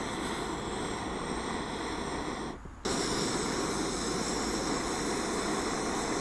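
Small handheld electric air blower running steadily with a high whine, blowing air into a fire at the base of a log stove. About two and a half seconds in it cuts out for a moment, then comes back slightly louder.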